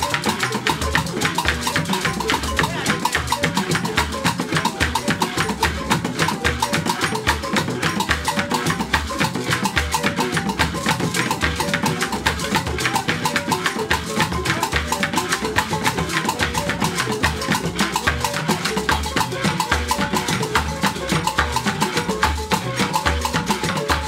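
Ghanaian traditional percussion ensemble playing a steady, fast rhythm together: shaken gourd rattles and a calabash drum set upside-down on a bucket and struck with a stick, with other small hand percussion.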